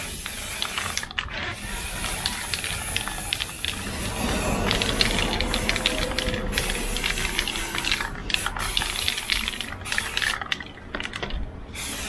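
Aerosol can of flat black spray paint spraying in a series of bursts, with short breaks about a second in and several more in the last few seconds.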